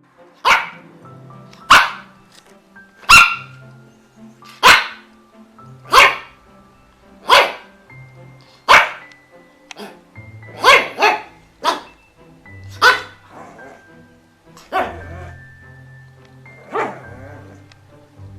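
A dog barking in single loud barks, about one every second and a half, with a quick pair of barks about two thirds of the way through. Soft background music plays underneath.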